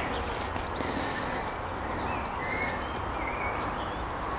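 Outdoor garden ambience: a steady low rumble of background noise with a few faint, distant bird chirps now and then.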